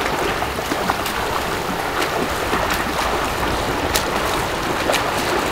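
Outdoor swimming pool ambience: a steady wash of moving water and wind noise, with scattered light clicks.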